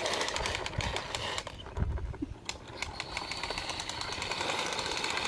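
Toy car running with a rapid mechanical whirring and clicking; a steady high whine joins in about halfway through.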